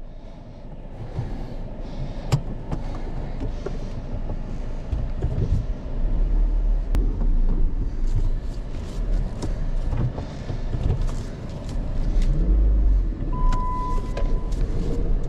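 A 2016 Jeep Patriot running and moving, heard from inside the cabin: a low, uneven engine and road rumble with scattered small clicks, and a short steady beep near the end.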